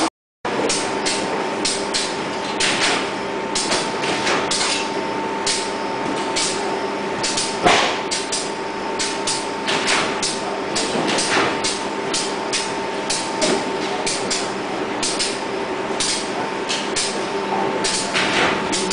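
Factory machinery running: a steady hum with a constant whine, overlaid by irregular sharp knocks and clatter, one louder knock about eight seconds in.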